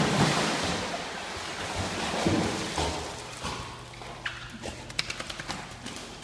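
Pool water splashing and sloshing as a dog dives in and swims, loudest at the start and fading. Near the end come a series of quick sharp clicks, the dog's claws on the metal grate of the pool deck.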